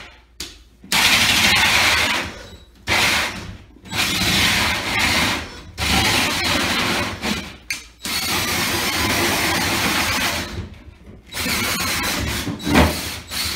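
Cordless drill spinning a 6 3/8-inch hole saw up through a drywall ceiling, cutting in about six bursts of one to two seconds with short pauses between, the teeth grinding through the gypsum inside a dust-catching bowl. A short knock comes near the end.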